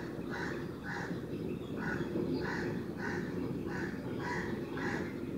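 Crows cawing over and over, short harsh caws about two a second with a brief gap near two seconds in, over a steady low background rumble.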